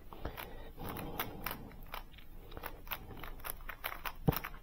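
GAN smart cube, a plastic 3x3 speedcube, turned quickly in the hands: quick, irregular clicks and clacks of its layers turning, with one sharper click near the end. The turns are the pairing of corner and edge pieces in the first-two-layers stage of a solve.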